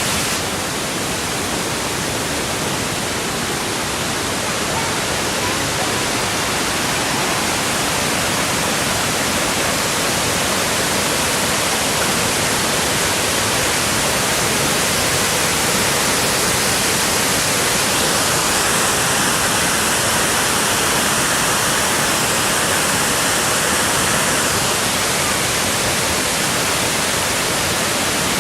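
Dip Falls in heavy flow after rain: a loud, steady rush of falling water.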